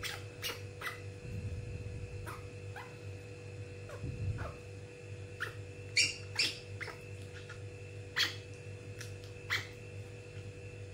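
Baby monkey giving short, high-pitched squeaks, about a dozen, with two louder ones past the middle, over a steady electrical hum.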